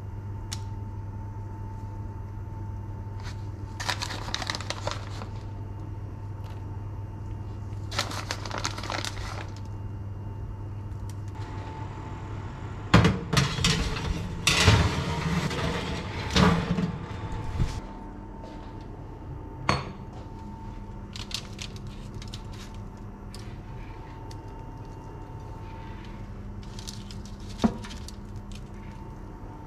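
Plastic bag of grated cheese crinkling in two short bursts while cheese is sprinkled, over a steady hum. About halfway through, a metal baking tray scrapes and clatters as it is slid into the oven, the loudest part, and a single sharp knock comes near the end.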